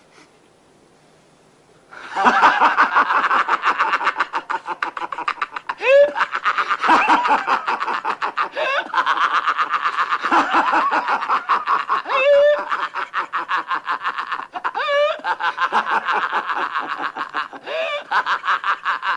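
People laughing hard and at length in rapid, continuous bursts, with a rising whoop every few seconds. It starts about two seconds in and cuts off near the end.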